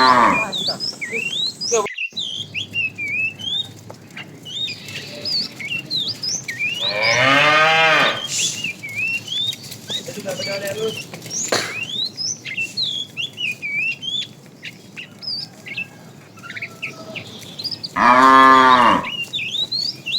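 Cows mooing: one long moo trails off at the start, another comes about seven seconds in, and a third near the end. Small birds chirp throughout.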